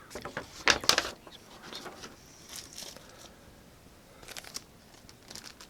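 Packaging and paper being handled while unpacking a microphone box: crinkling and rustling in several short bursts, the loudest about a second in.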